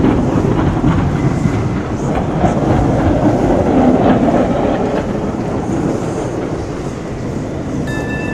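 Steady low rumbling noise with a few faint clicks, easing off slowly; a few steady high tones come in near the end.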